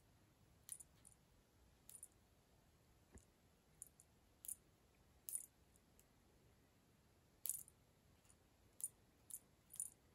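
A cat batting a wand toy about on a hard floor: about ten brief, high-pitched clicks and taps at irregular intervals.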